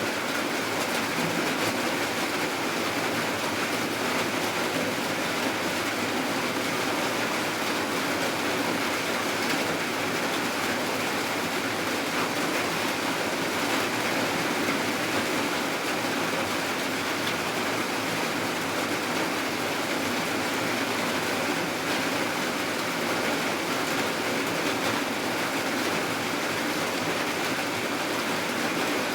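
Steady rainfall, an even, unbroken hiss of rain with no change in intensity.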